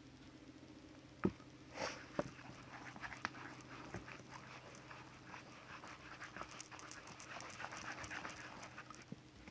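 Slime being stirred in a bowl: a sharp knock about a second in, then irregular sticky clicks and squelches that grow denser toward the end.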